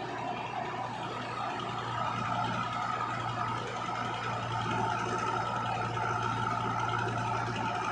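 Diesel engines of a Mahindra Arjun 555 tractor and a JCB 3DX backhoe loader idling steadily.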